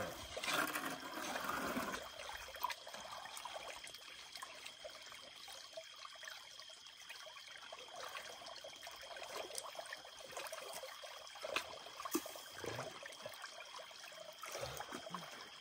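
Creek water sloshing and splashing around a shovel digging into the creek bed, louder in the first two seconds, then quiet splashes and small knocks.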